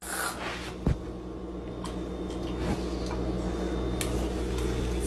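Steady low hum of a small room, with a few light clicks and taps.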